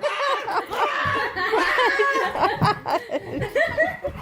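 Several people laughing together, overlapping voices at different pitches, without a break.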